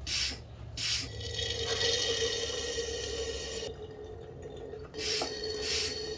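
Hand pump sucking power steering fluid out of the reservoir: short hissing strokes, then a longer sucking draw of fluid and air through the tube with a steady tone in it, and a few more short strokes near the end.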